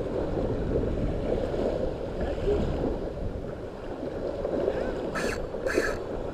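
Surf washing on the beach with wind buffeting the microphone, a steady low rumble. Two short hissing bursts come about five and six seconds in.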